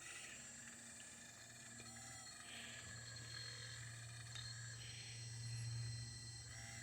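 Low steady hum from the hydraulic pump motor of an RC excavator, growing louder from about two and a half seconds in before easing near the end. Faint high chirps come every two seconds or so.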